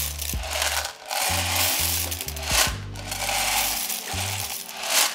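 Dry elbow macaroni rattling and pattering as it is poured out of a plastic canister into a pot, in uneven swells. A background music track with a bass line plays underneath.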